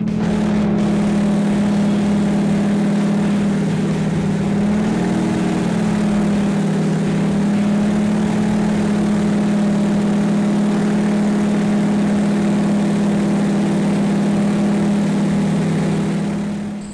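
T-6 Harvard's Pratt & Whitney R-1340 Wasp nine-cylinder radial engine and propeller droning steadily in cruise flight, heard from inside the cockpit. The pitch wavers briefly about five seconds in.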